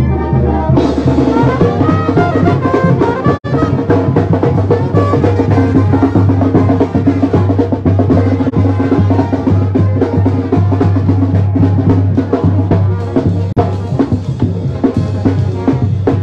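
Brass band playing on the march: trumpets carry the tune over a steady bass line, with bass drum and snare keeping the beat. The sound drops out for an instant about three seconds in.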